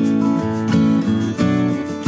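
Background music of strummed acoustic guitar chords, the chords changing about every half second.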